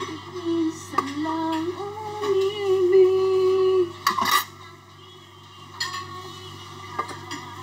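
Background song with a sung melody over a steady beat, broken by a few sharp clinks and a louder clatter about four seconds in, after which the melody drops away.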